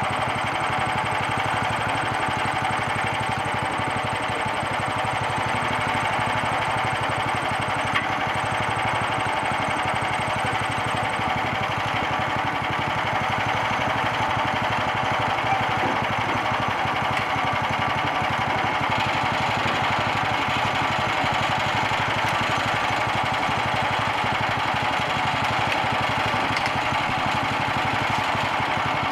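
Small gasoline engine of a homemade bandsaw mill running steadily as the mill saws through a log.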